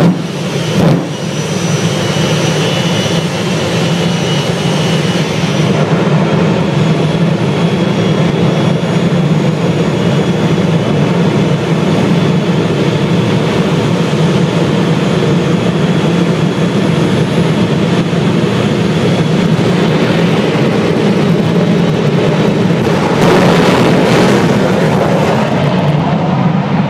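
Jet dragsters' jet engines running loud and steady on the starting line, with a sharp pop about a second in. About 23 seconds in the noise jumps up as they go to full power and launch down the strip.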